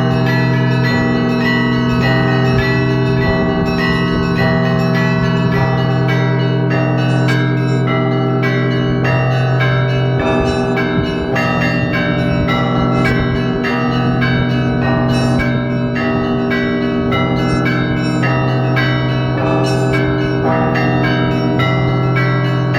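Russian Orthodox monastery bells rung by hand from the belfry: a continuous peal of quick, overlapping strokes on the smaller bells over the steady hum of the large bells.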